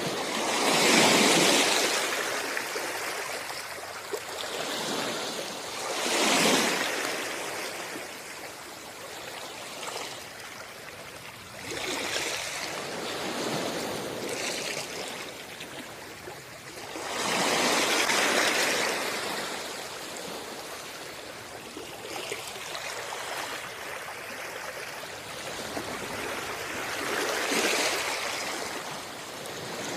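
Gentle surf washing onto a shore, a slow rise and fall of the wash repeating every several seconds.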